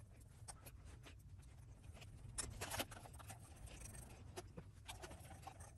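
Faint clicks and scrapes of a small hex driver turning a wheel nut on an RC crawler as its wheel is taken off, with a few slightly louder clicks about two and a half to three seconds in.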